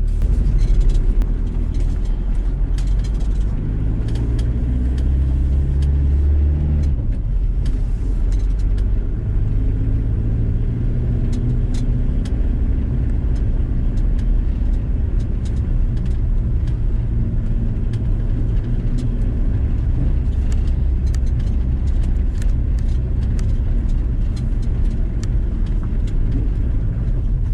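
VW T4 campervan driving, its engine and road noise making a steady low rumble. The engine note climbs over the first several seconds, shifts about seven seconds in, then holds steady.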